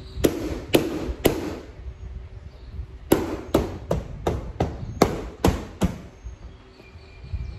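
Third-gen Toyota Tacoma roof rack rail being smacked by hand to seat its locating nubs into the roof holes. Three sharp knocks about half a second apart, then a pause and a run of about eight more.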